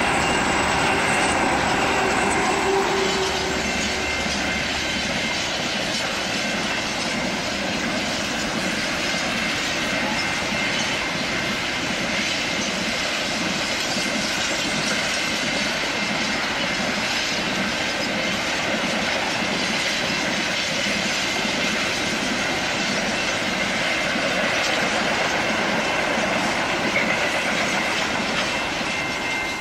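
A freight train of Pacific National G and 81 class diesel-electric locomotives passing at speed: the engines' low drone for the first few seconds, then a long string of grain hopper wagons rolling by with a steady rumble and wheel clatter and a thin high wheel squeal at times.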